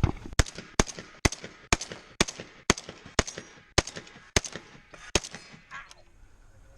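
Rock Island Armory VR-80 semi-automatic 12-gauge shotgun fired in quick succession at targets: about a dozen sharp shots at roughly two a second. The shots stop a little after five seconds in, followed by a couple of fainter ones.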